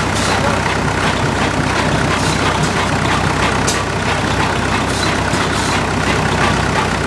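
Caterpillar engine-driven generator set running at a steady speed, with a few light ticks over the engine sound.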